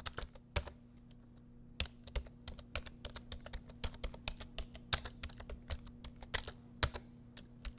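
Typing on a computer keyboard: irregular key clicks, sparse at first and coming quicker from about two seconds in, over a faint steady hum.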